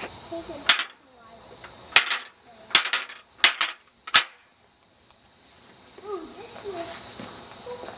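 AR500 steel target plates on a plate rack clanking against the steel frame as they are flipped by hand: about five sharp metal clanks within the first four seconds, a couple of them in quick succession.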